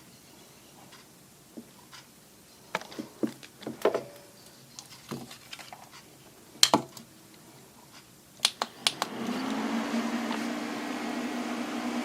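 Scattered handling knocks and clicks, then three sharp clicks about eight and a half seconds in. An electric fan then starts up and runs with a steady hum and rush of air.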